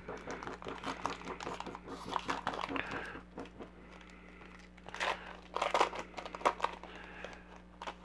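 Foil wrapper of a Panini Contenders football card pack being torn open and crinkled by hand, a dense crackle at first and the loudest sharp crinkles about five to six and a half seconds in.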